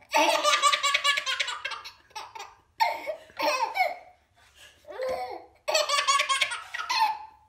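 A baby laughing hard in several bursts of quick, breathy giggles, with short pauses between them.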